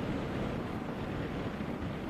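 Steady wind rush over a GoPro mounted on the chin of a motorcycle helmet while riding, with the motorcycle's running noise blended underneath.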